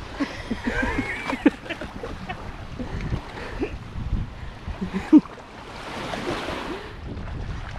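Small waves washing on the sand with wind on the microphone, and a few short grunts from pigs nosing at an inflatable dinghy, the loudest about a second and a half and five seconds in.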